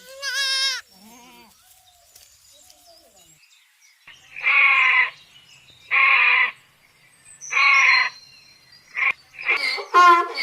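Livestock bleating: a quavering call at the start, then three loud bleats about a second and a half apart. A quicker run of wavering calls begins near the end.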